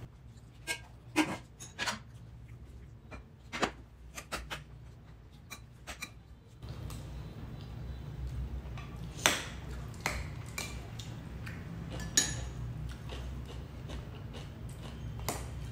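Metal spoons and forks clinking and scraping against ceramic plates and bowls during a meal, a scatter of sharp clinks at irregular intervals. A steady low hum lies underneath throughout.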